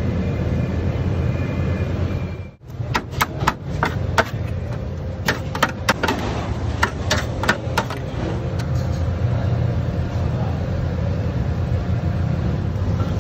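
Steel utensils, a knife and a ladle, clicking and knocking on the metal drip tray of a shawarma spit, a quick run of sharp taps between about three and eight seconds in, over a steady low rumble of the shop.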